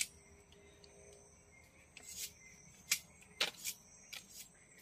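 Machete chopping at a hand-held asam payak palm shoot: one sharp knock at the start, then a run of quick chops from about two seconds in. A faint steady high insect drone continues behind.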